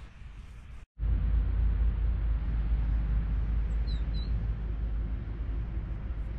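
Quiet outdoor ambience for about a second, then a sudden cut to a steady low outdoor rumble that eases slowly. A couple of short, high bird chirps come about four seconds in.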